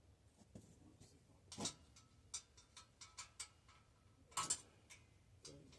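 Light metallic clicks and taps from hand tools and bicycle parts being handled during a teardown: a sharper knock about a second and a half in, a quick run of about five even clicks a second, and a louder clatter of clicks near the end.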